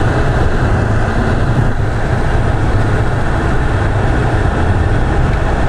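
Steady road and engine rumble heard inside a moving car, a constant low drone with tyre noise over it.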